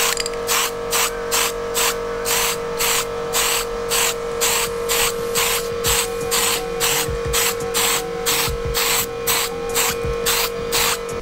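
Background music: a fast, even beat of hissy hi-hat-like hits, about four a second, over one held note that stops near the end.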